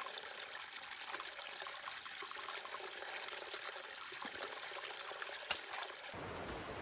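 A small trickle of water running steadily over moss and rock in a forest, an even splashing hiss. It cuts off suddenly near the end.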